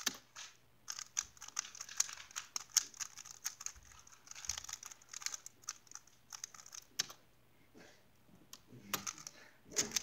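Plastic Rubik's cube being turned quickly by hand: a rapid run of small clicks and clacks from the layer turns, sparser for a few seconds in the middle, then fast again near the end.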